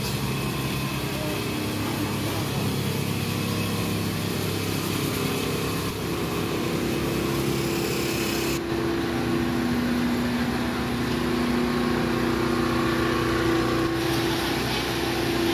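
A small engine running steadily with a low hum under the street noise. The background changes abruptly twice, partway through and near the end.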